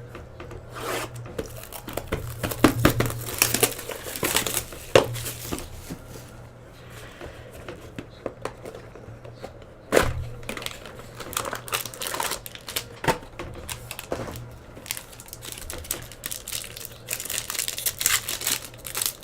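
Plastic wrapping on a sealed box of trading cards being torn and crumpled, with irregular crackles and taps from handling, busiest near the end, over a steady low hum.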